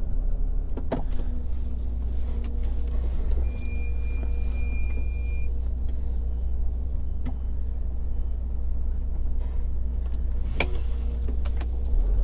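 Truck engine running low and steady as the truck creeps forward. About three and a half seconds in, a steady high beep sounds for about two seconds, and a few clicks and a short sharp burst of noise come later.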